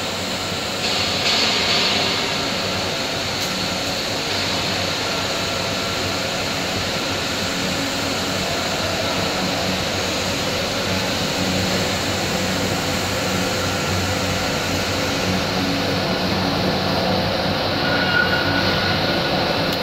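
Disc stack centrifuge separator running at speed, driven by its electric motor: a steady mechanical whir with a constant hum.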